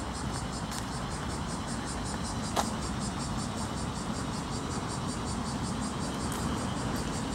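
Summer park ambience: cicadas shrilling in a steady fast pulse over a low, even rumble. There is one sharp click about two and a half seconds in.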